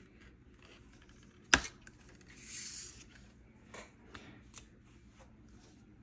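A hobby knife pressed down through a thin plastic rod, cutting it with one sharp snap; a brief scrape follows, then a few light taps.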